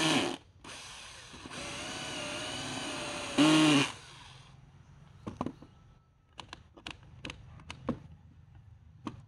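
A 12-volt cordless drill, running off a mains power supply in place of its battery, bores into a wooden board. Its motor whines at a steady speed, gets louder for a moment about three and a half seconds in, then stops about four seconds in. Scattered light clicks and knocks follow as the drill is handled and laid down on the board.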